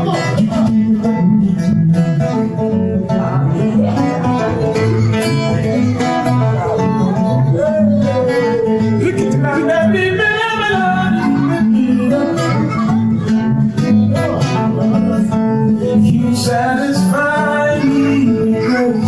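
Guitar-led music with a singing voice carrying the melody.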